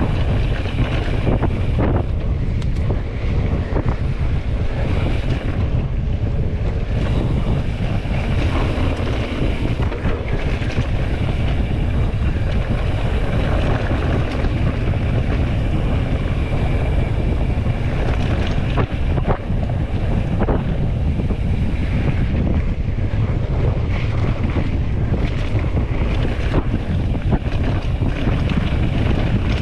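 Wind buffeting the microphone during fast travel: a steady low rumble with a rushing hiss over it.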